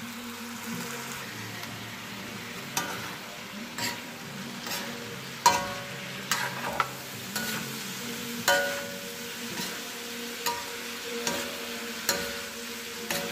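Stir-frying in a metal wok: a steady sizzle, with a metal spatula scraping and knocking against the wok about once a second. Each knock rings briefly.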